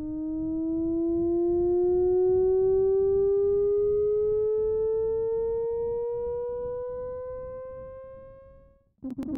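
Csound-synthesized tone gliding slowly and steadily upward by about an octave, with faint overtones above it. It swells in, then fades out. Near the end a dense, crackly, clicking synthesized sound cuts in abruptly.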